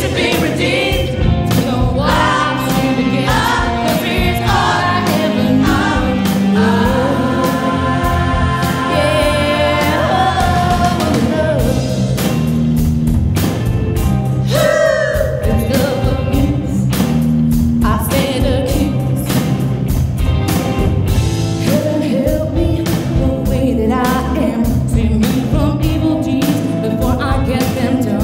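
Music with singing over a steady drum beat, accompanying a stage dance number.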